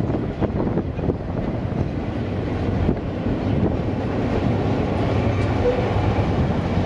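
Train running, a steady low rumble with a few faint clicks.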